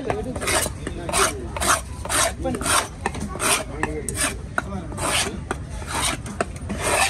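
Knife scraping a fish on a wooden chopping block in quick, repeated rasping strokes, about two a second.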